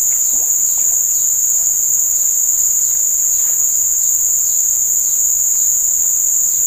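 A loud, steady, high-pitched insect chorus, one unbroken drone with no pauses.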